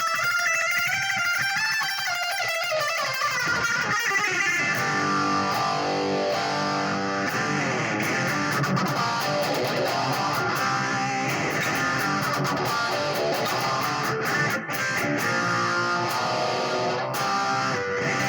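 Electric guitar played through an amp with heavy distortion from stacked overdrive and Marshall-style distortion pedals and a short slapback echo, dialled in for a 'brownish' tone. Wavering high notes in the first few seconds give way to fuller, lower chords.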